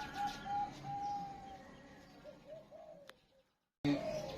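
Perkutut (zebra dove) cooing: a quick run of short staccato notes, one longer held note about a second in, then a few falling notes that fade out. Near the end the sound drops out completely for under half a second and then cuts back in.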